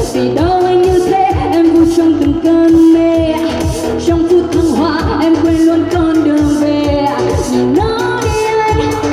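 A singer performing a pop song live over a backing track, holding long sung notes over a steady drum beat.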